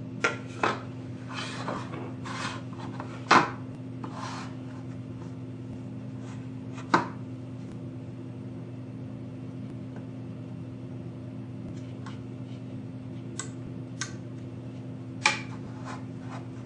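White styrene plastic kit parts handled and trimmed with a hobby knife on a wooden workbench: scattered sharp clicks and light rubbing, the loudest click about three seconds in, over a steady low hum.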